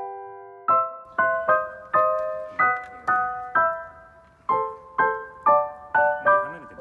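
Background music on piano: a gentle melody of struck notes and chords, about two a second, each fading before the next, after a chord held for the first moment.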